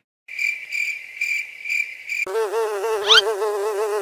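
A thin high-pitched whine, then about two seconds in a housefly buzz sound effect takes over, its pitch wavering up and down. A quick rising chirp cuts through about three seconds in.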